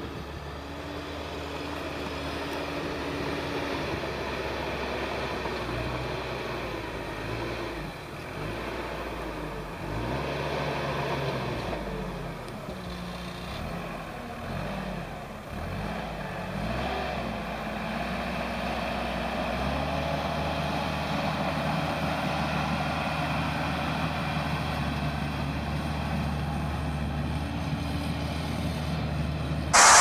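Caterpillar crawler bulldozer's diesel engine running under load as it pushes dirt, its pitch rising and falling through the middle stretch, then holding steady in the second half.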